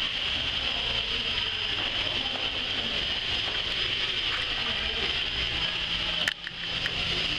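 Steady hiss over a low hum, as from the standing PKP Ok1 steam locomotive venting steam. A sharp click and a brief drop in level come about six seconds in.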